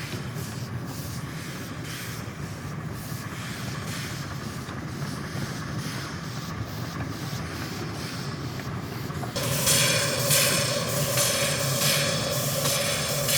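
Miniature live-steam Heisler geared locomotive working, with steam hiss and a beat of exhaust pulses. About nine seconds in, the sound jumps suddenly louder, with a quicker regular beat of a few pulses a second.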